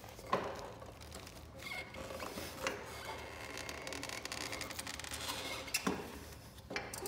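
Rubber track of an Altoz TRX mower being rotated by hand around its drive wheel and rollers: faint rubbing and scraping, with a sharp knock about a third of a second in and another near six seconds.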